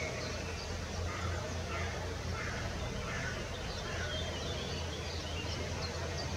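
Faint, scattered chirps of small birds, coming more quickly near the end, over a steady low hum.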